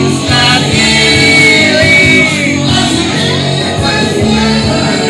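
Loud rock music with a singing voice, in a large room.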